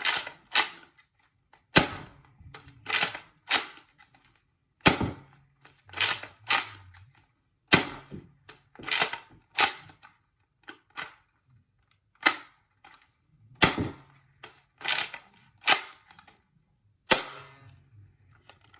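Spring-powered Nerf Rival Roundhouse blaster being primed and fired over and over: a string of loud, sharp clacks about once a second, several coming in close pairs, with a short pause partway through.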